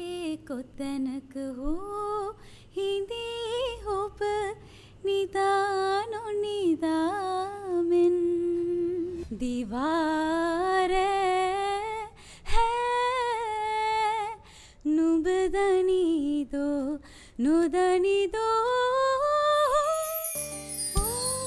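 A woman singing unaccompanied into a microphone, a single voice sliding between notes and holding some long ones with vibrato. About twenty seconds in the singing stops and a short bright musical sting takes over.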